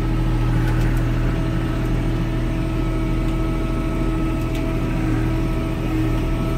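Kubota L3560 tractor's diesel engine running steadily, heard from inside the cab while the front loader with grapple pushes into a brush pile. A few faint clicks sound over the engine, about a second in and again past the middle.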